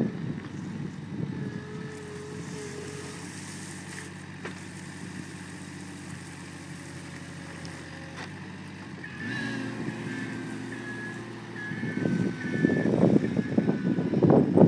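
Kubota diesel engine of an Avant 635 compact loader running steadily while it works its 4-in-1 bucket. About nine seconds in, the note changes and a whining tone joins in, and near the end a loud, rough noise rises over it.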